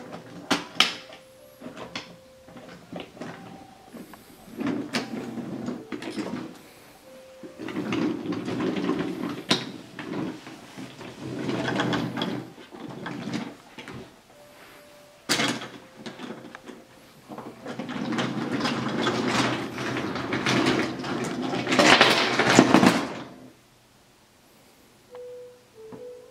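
Wooden toy trains pushed by hand along wooden track, rolling and rattling in several stretches of a few seconds each, with scattered clicks and knocks of wooden pieces in between; the longest and loudest stretch comes in the second half.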